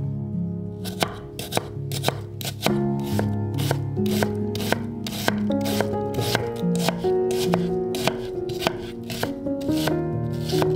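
Chef's knife chopping an onion on a wooden cutting board: a steady run of sharp knife strikes against the board, about two a second, with background music throughout.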